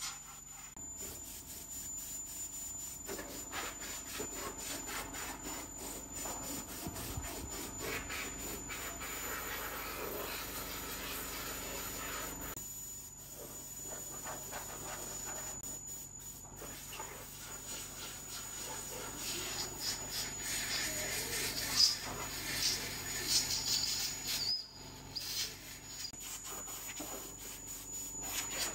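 Hand tools rubbing, scraping and clinking against the steel underside and front frame of a compact tractor during repair work.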